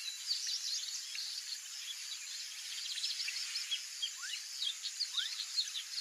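Rusty-collared seedeater singing a fast, varied twitter of short chirps and rising notes, over a steady high buzz of insects.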